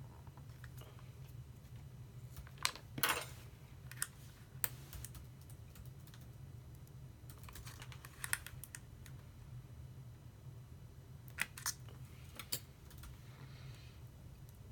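Scattered light clicks and taps of laptop parts being handled, as the hinges of a replacement MacBook Pro display are worked open. There are about eight irregular clicks, a cluster near 3 seconds in and more around 8 and 12 seconds, over a steady low hum.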